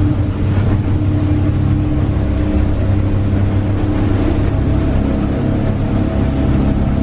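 Tour boat's engine running steadily at cruising speed, heard from inside the cabin: an even low drone with a constant hum, under a steady rushing hiss of the boat moving through the water.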